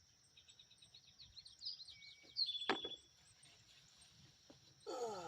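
A songbird singing a quick run of high chirps and trills, over a steady high hiss of outdoor ambience. A single sharp click, the loudest sound, comes just after the song, about two and a half seconds in.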